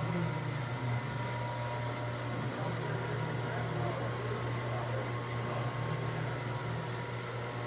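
Ingersoll Rand SSR-XF75 75 hp rotary screw air compressor running with a steady low hum and even hiss, a few faint steady tones above it.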